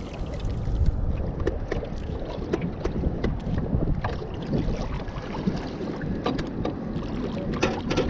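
Wind buffeting the microphone in an irregular low rumble, with scattered light clicks and knocks throughout and a small cluster of them near the end.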